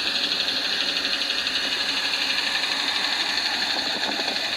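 UAZ Patriot engine running at a steady raised speed, with a rapid, even knock in time with the crankshaft, which the mechanic suspects is piston slap.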